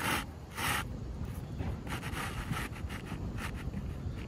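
A 3-tab asphalt shingle being slid back by hand into its slot under the course above: two short scraping rasps near the start, then several fainter scrapes, over a low steady rumble.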